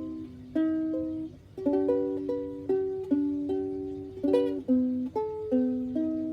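Ukulele played solo: plucked chords and picked notes, each struck sharply and ringing out before the next, in an unhurried rhythm.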